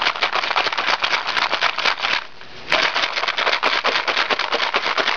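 Paintballs, many of them broken and coated in paint, clattering and rattling inside a ViewLoader Rotor paintball hopper that is being shaken hard by hand. The rapid clatter stops for about half a second around two seconds in, then starts again.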